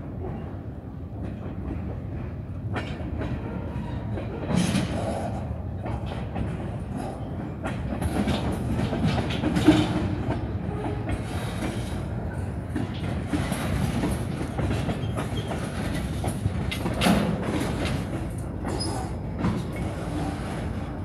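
Loaded centerbeam lumber flatcars rolling slowly along the track: a steady rumble of steel wheels on rail with irregular clanks and knocks, the loudest of them about five, ten and seventeen seconds in.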